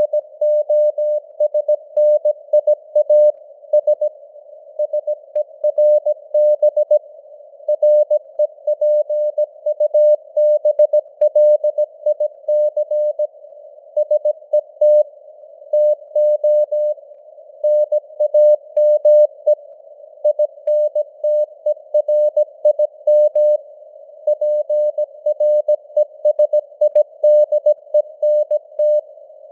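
Morse code (CW) sent at 17 words per minute: one steady beep tone keyed on and off in dots and dashes, over simulated radio receiver hiss, with the signal strength fading up and down (QSB).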